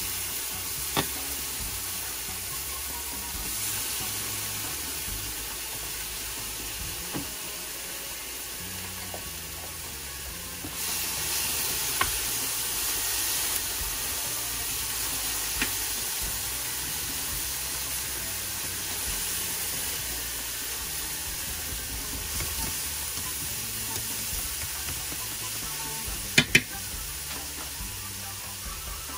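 Chopped onion and garlic sizzling in hot olive oil in a stainless steel pan, a steady frying hiss. A few short, sharp taps come as wooden chopsticks stir against the pan.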